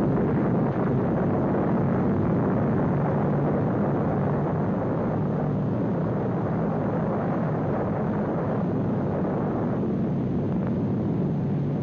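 Steady rumbling roar of an atomic bomb blast on an old newsreel soundtrack, with no separate bangs.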